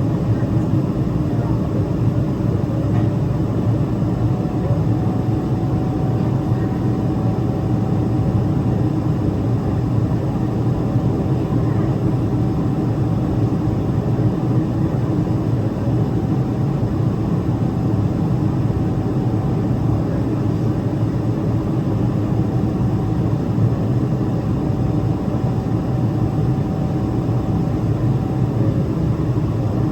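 Steady cabin roar of a Boeing 777-300ER's GE90 jet engines and airflow after takeoff, deep and even, with a faint steady whine that comes in a few seconds in.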